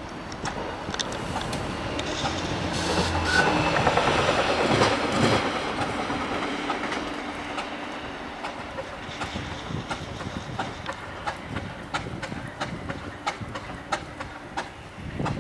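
Class 50 diesel locomotive's English Electric 16-cylinder engine running in deep cold just after a cold start. Louder for a couple of seconds around four seconds in, with scattered sharp clicks later on.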